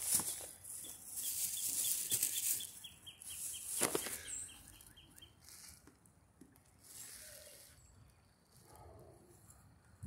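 Crinkling and rustling, with a run of short high chirps at about four a second through the first half and a single sharp knock about four seconds in; fainter and quieter in the second half.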